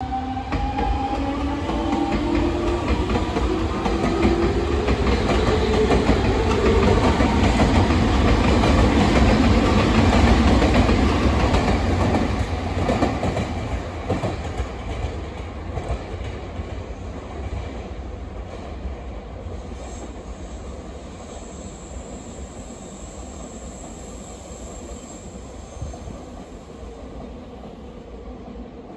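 Nankai electric commuter trains passing through a station, with wheels clattering on the rails. A whine falls in pitch over the first few seconds, the noise peaks about ten seconds in and then fades steadily, and a thin high whine sounds near the end.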